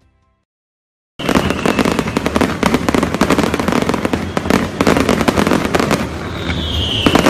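After about a second of silence, fireworks start going off in a loud, dense, continuous crackle of rapid bangs, with a falling whistle near the end.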